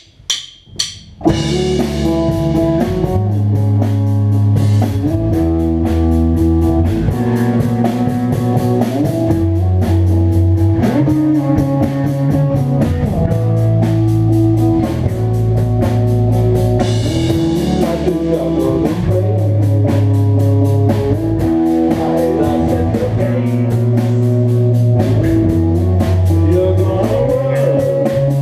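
Rock band rehearsing: a few sharp count-in clicks, then bass guitar, electric guitar and drum kit come in together about a second in and play loud, with a prominent bass line.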